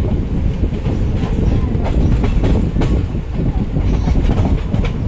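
Passenger train coaches running along the track, heard from an open coach door: a steady low rumble with the irregular clatter of wheels over rail joints.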